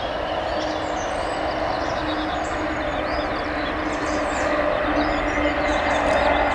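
Antonov An-124's four D-18T turbofan engines at takeoff thrust: a steady roar with a low hum in it, growing slowly louder as the freighter rolls and lifts off.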